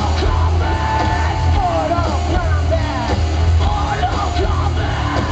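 Live rock band playing at full volume, with a heavy sustained bass line, drums and electric guitars under a singer yelling and singing into the microphone.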